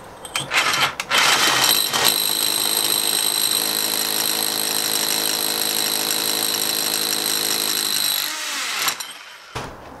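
Rotary hammer with a core bit drilling through a brick wall, boring a hole for the furnace's vent pipes. After a few short bursts in the first second it runs steadily with a high whine for about seven seconds, then stops; one more short burst comes near the end.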